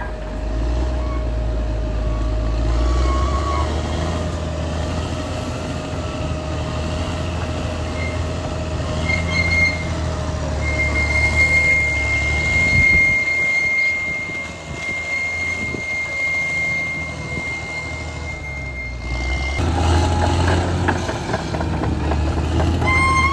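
Caterpillar D6R XL crawler bulldozer working, its diesel engine running steadily under load with the machine's mechanical clatter. A steady high-pitched squeal runs for several seconds through the middle, and the engine grows louder near the end.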